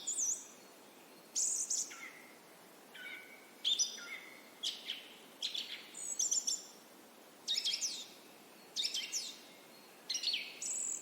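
Bird calls: short bursts of high chirps that slide downward in pitch, repeated about once a second, some bursts dipping lower than others.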